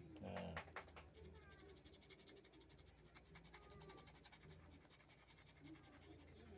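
Faint, rapid scratching as fingertips rub the thread wrap on a fishing rod's ring guide foot to clean dirt off it, after a brief falling sound just after the start.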